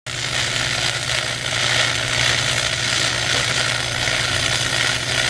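Stick (shielded metal arc) welding arc crackling steadily as an electrode burns.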